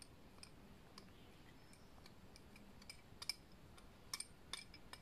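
Faint, irregular light clicks of a metal spoon against a small cup while stirring milk powder with a little water into a thick paste.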